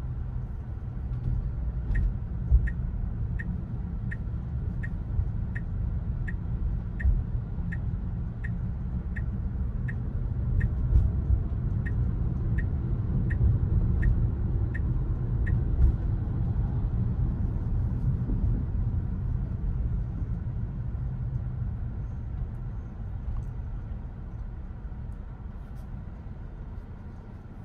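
Steady low road and tyre rumble in a moving Tesla Model Y, an electric car with no engine note. For about the first half, a turn-signal indicator ticks evenly, about one and a half times a second, and then stops.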